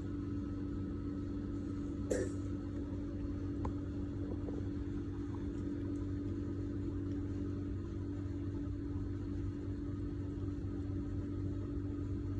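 Steady low mechanical hum, with one brief sharp click-like sound about two seconds in and a few faint ticks after it.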